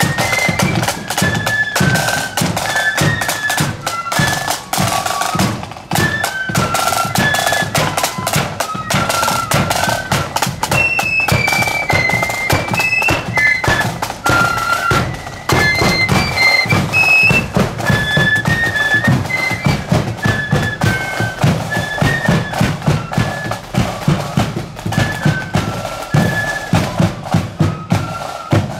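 Marching band playing a tune: a shrill, high melody carried over a steady beat of bass and side drums.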